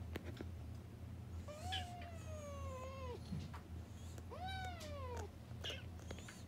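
Domestic cat meowing twice up close: two long drawn-out meows. The first lasts about a second and a half and sags slowly in pitch; the second, a second later, is shorter and rises then falls.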